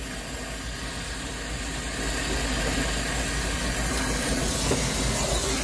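Brazing torch flame hissing steadily as it heats a copper refrigerant line joint at the expansion valve on a freezer evaporator coil. It gets a little louder about two seconds in.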